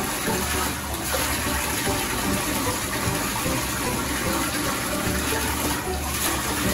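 Water running steadily in a bathtub, a continuous rushing gush.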